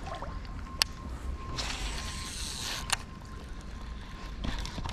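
A baitcasting rod and reel handled during a cast: a sharp click, a hiss lasting about a second, then another click, over a steady low rumble of wind and moving water.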